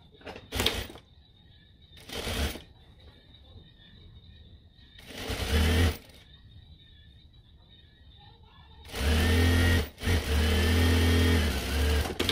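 Sewing machine stitching in short runs: three brief bursts in the first six seconds, then a longer, louder run of about three seconds with a short stop partway through.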